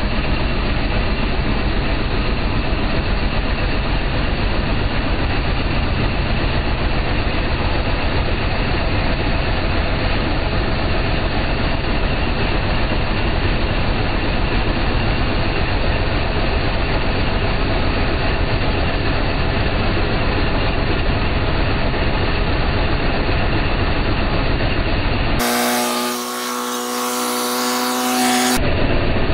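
Boat engine running steadily, heard close up at its exhaust manifold, which the owner takes to be cracked. Near the end, for about three seconds, the sound changes to a smoother hum with a clear pitch.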